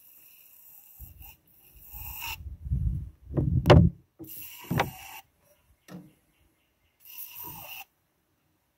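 Aerosol can sprayed at a diesel tractor engine's glow-plug holes in about three short hissing bursts. A low rumble and a loud knock come in about the middle.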